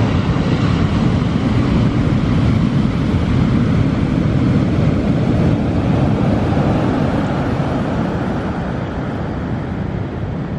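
Pacific surf breaking on the beach: a steady, loud, low rush of waves, with wind on the microphone.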